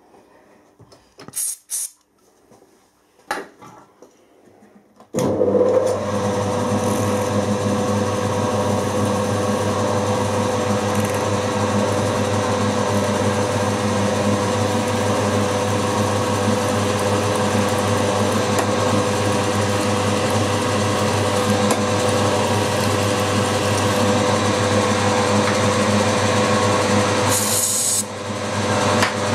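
A few light clicks, then about five seconds in a milling machine's spindle starts and runs steadily with a motor hum, driving a 4.1 mm twist drill through an aluminium pulley to make the tapping hole for an M5 thread.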